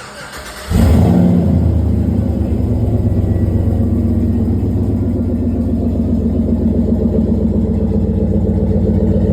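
Pickup truck engine starting: a brief crank, then it catches about a second in with a short flare of revs and settles into a steady, loud idle.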